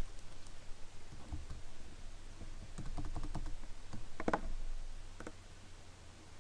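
A scattered handful of clicks and taps on a computer keyboard and mouse, with one louder clack about four seconds in.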